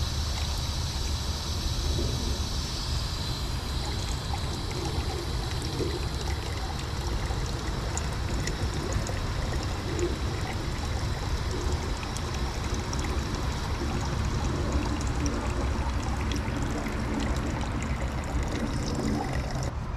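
Garden hose running water into a sewer cleanout pipe, a steady pouring trickle as the sewer line is filled for a water leak test.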